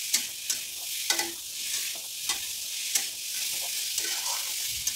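Diced pumpkin and spice masala frying in a metal kadai with a steady sizzle, while a metal spatula scrapes and taps against the pan about once a second as it is stirred.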